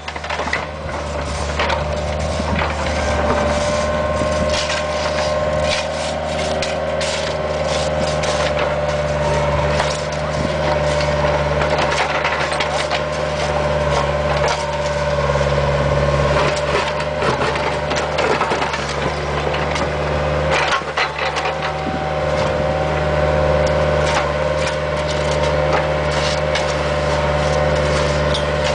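Bobcat 430 ZHS mini excavator's diesel engine running steadily with a constant whine, while the bucket tears up and scrapes broken asphalt, chunks cracking and grinding against each other irregularly.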